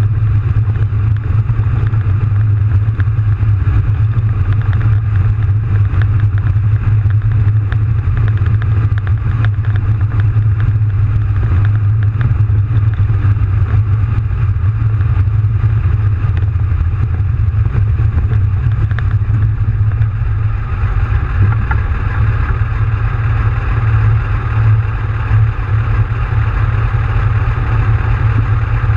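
AT-S artillery tractor's 39-litre V12 diesel running steadily as the tracked tractor drives, heard loud from inside the cab, with the rattle of its tracks and running gear over the engine note.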